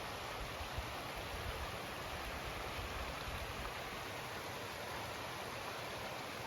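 Small stream rushing beside the road: a steady, even water noise.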